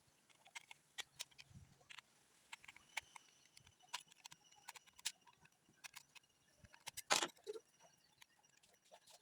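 Irregular small clicks and taps from handling the opened router's plastic casing and circuit board, with one louder knock about seven seconds in.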